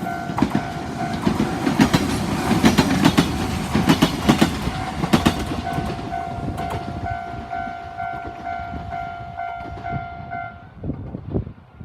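Electric train passing over a railway level crossing: loud rhythmic clatter of wheels over rail joints and a rumble, fading after about seven seconds. Over this the crossing's electronic warning bell rings steadily and stops about ten seconds in.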